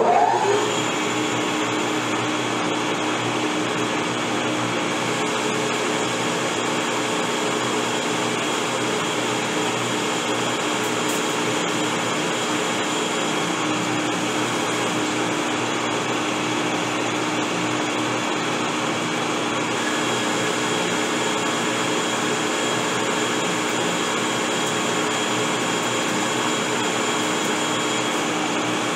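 Metal lathe spindle starting up, then running steadily while the tool turns down the major diameter of a stainless steel rifle barrel's thread tenon: an even whir with a few constant tones.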